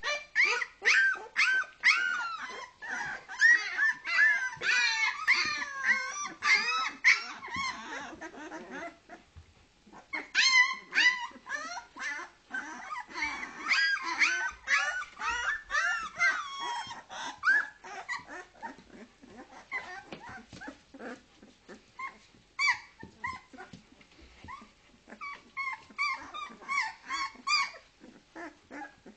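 Two-week-old Leonberger puppies crying: many short, high calls that bend up and down in pitch, overlapping in dense runs, with a lull about nine seconds in and sparser calls toward the end.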